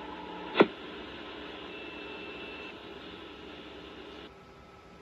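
Dead air on an FM radio broadcast: steady static hiss with faint hum tones, broken by one sharp click about half a second in. The hiss drops a little just after four seconds.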